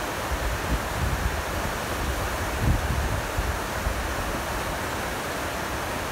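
Glacial meltwater stream rushing over rocks, a steady hiss. Wind buffets the microphone in irregular low gusts, the strongest a little under three seconds in.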